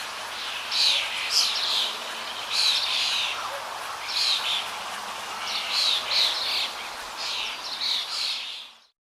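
Small birds chirping in short bursts every second or so over a steady hiss, fading out near the end.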